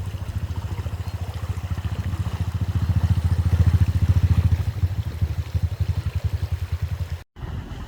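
A vehicle engine running with a fast, even, low pulsing beat that swells in the middle and then eases. The sound cuts out abruptly for a moment near the end.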